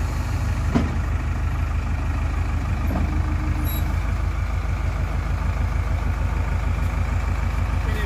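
JCB 3DX backhoe loader's diesel engine running steadily while its backhoe arm digs, with a single knock about a second in.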